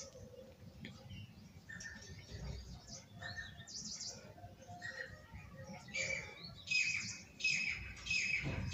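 Whiteboard marker squeaking against the board as letters are written: a string of short, high, chirpy squeaks, louder and more frequent from about two-thirds of the way in.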